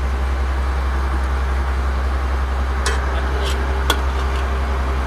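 Fishing boat's engine running with a steady low hum, with a few clinks of a steel ladle against steel pots about three to four seconds in.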